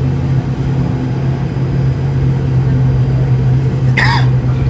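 Steady low drone of an ATR 72-600's turboprop engines and propellers heard inside the passenger cabin, with a brief high squeak about four seconds in.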